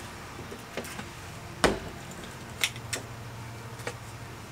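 A few sharp knocks and clicks of objects being handled, the loudest a dull thump about a second and a half in, over a faint steady low hum.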